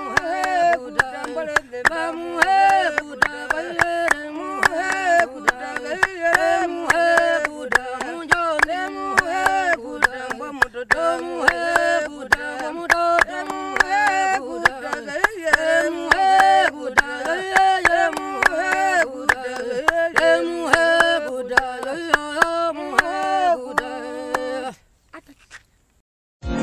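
Voices singing a repeating melody to sharp, steady clapping. The sound breaks off near the end.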